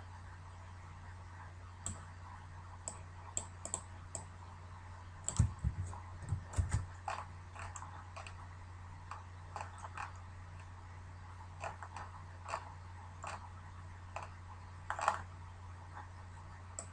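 Computer keyboard keys and mouse clicks, sparse and irregular, with a quick bunch about five to seven seconds in and another near fifteen seconds, over a steady low electrical hum.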